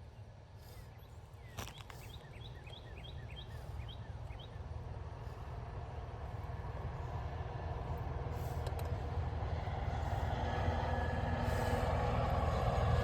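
A heavy vehicle approaching, its low engine rumble growing steadily louder. A quick series of short high chirps comes about two to four seconds in.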